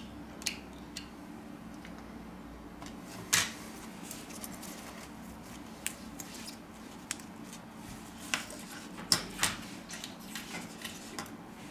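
Small scattered clicks and taps of a phone being taken apart by hand: a plastic spudger unclipping the rear camera's flex connector from the circuit board and the camera module being handled and set down. The loudest tap comes about a third of the way in, with two more close together about three quarters through, over a faint steady hum.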